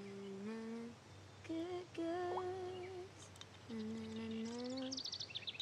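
A woman humming a slow tune in long held notes that step up and down in pitch, with short pauses between phrases. Birds start chirping near the end.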